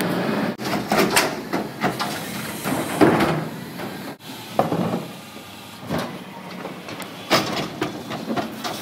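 Plastic wheeled trash cart knocking and banging against the steel rim of a front-load dumpster container as it is lifted and tipped by hand, with the loudest bang about three seconds in. A garbage truck's engine runs underneath.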